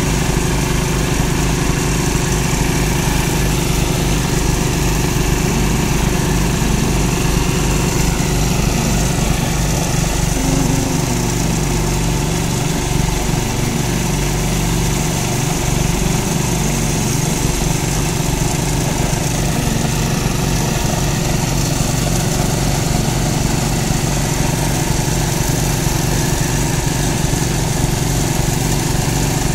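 Small petrol engine of an abrasive rail-cutting saw running steadily, its disc grinding through a steel rail, with a hiss over the engine hum.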